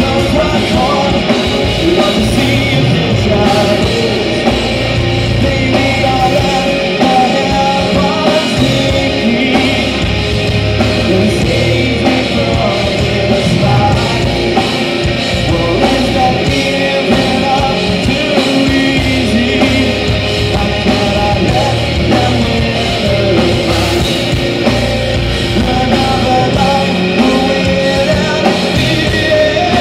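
Heavy metal band playing live and loud: electric guitars and drums under a male singer's vocals.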